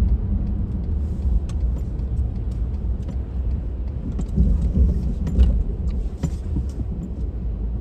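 Car driving, heard from inside the cabin: a steady low rumble of engine and road noise, with scattered faint ticks.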